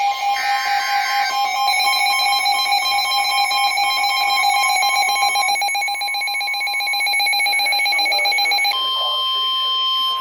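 Emergency Alert System tones: a brief warbling data burst of the SAME header, then the two-tone attention signal held steady for several seconds. About nine seconds in it gives way to a single steady higher tone, the 1050 Hz NOAA Weather Radio alert tone, announcing a severe thunderstorm warning.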